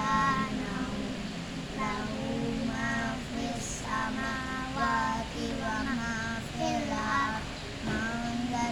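Children's voices chanting Arabic dzikir recitation together in a sing-song melody, phrase after phrase.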